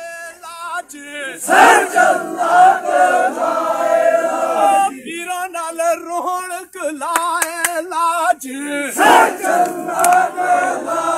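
A crowd of men chanting a call-and-response work chant as they haul on a rope together. A lone leader's voice calls, and the group answers with a loud shout and a sung reply, twice.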